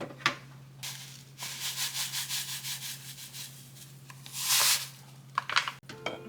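Rapid rubbing or scrubbing strokes, about five a second, then a longer, louder swish and a few sharp clicks near the end.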